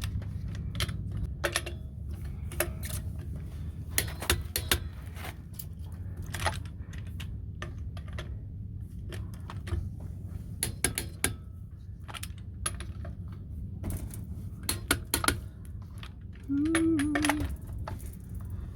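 Click-type torque wrench ratcheting on RV wheel lug nuts, sharp metallic clicks in scattered clusters, as the nuts are brought to 60 foot-pounds in a star pattern. A steady low hum runs underneath.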